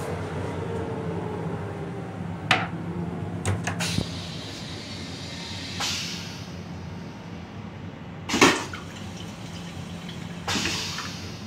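Commuter-train toilet with a stainless steel bowl flushing: a few clicks, rinse water washing around the bowl, then a loud whoosh about eight seconds in and another shorter one near the end, over a steady low train rumble.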